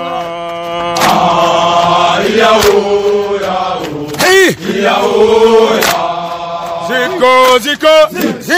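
Voices chanting a Senegalese soldiers' song in long held notes over a low steady hum, breaking into shorter, choppier phrases near the end.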